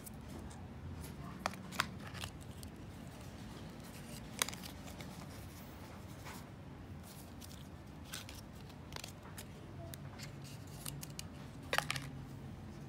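Paper and cardboard handling: light rustling with scattered sharp clicks and taps as hands turn over the iPhone 12's paper-banded charging cable, its Apple sticker sheet and the cardboard box insert. The loudest click cluster comes near the end.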